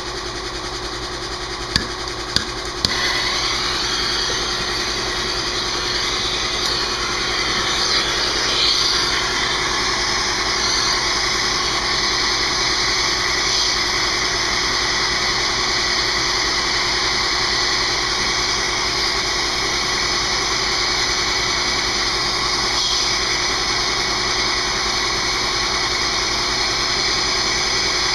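A handheld gas torch being lit: three sharp igniter clicks, then a steady loud hissing flame from about three seconds in, used to heat a seized brake caliper bolt.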